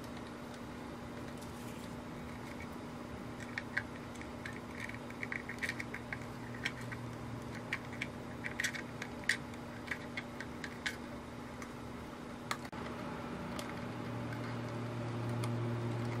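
Small clicks and light scrapes of hands handling a plastic boat gauge housing and its wires while seating the rubber gasket, most of them in the middle stretch, over a steady low hum.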